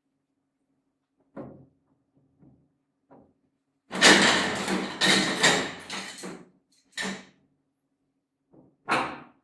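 Knocks and clattering thuds of hard objects set down on a wooden tabletop: a few light knocks, then a loud run of clatter about four seconds in, and single knocks near the end. A faint, steady low hum runs underneath.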